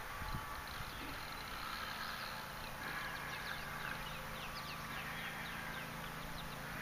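Outdoor ambience with many short, high chirps sweeping downward, thickest in the second half, over a low steady hum that sets in about three seconds in.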